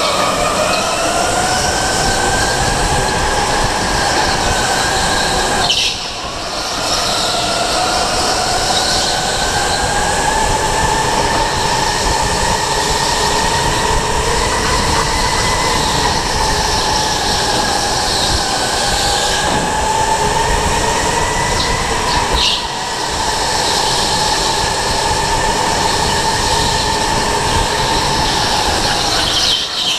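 Electric go-kart heard from onboard: the drive motor's whine rises and falls with speed over wind and tyre noise. It drops away briefly twice, about six seconds in and again about two-thirds of the way through, as the throttle is lifted for corners.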